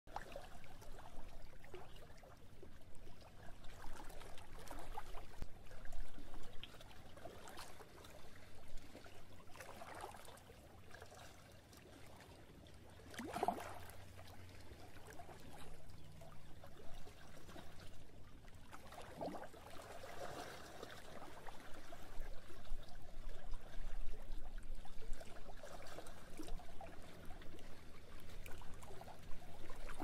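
Small lake waves lapping and sloshing against a wooden dock in an irregular run of soft slaps, with a few louder splashes now and then.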